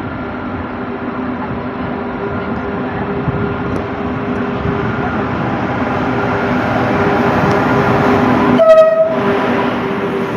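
Train running by, with a steady rumble and several held tones that grow louder toward a peak about nine seconds in. At the peak a short, high tone sounds, and then the noise starts to ease off.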